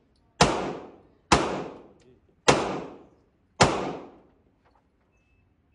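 Four gunshots, about one a second, each echoing off the walls of an indoor shooting range. A faint repeating high beep starts near the end.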